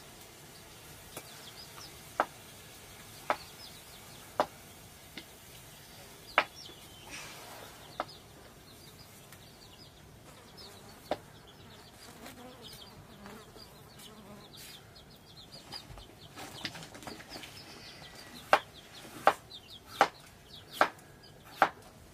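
Knife blade striking a wooden cutting board while cutting tuber pieces: sharp single knocks spaced a second or more apart at first, then a quicker run of five chops near the end. Faint high chirping continues in the background.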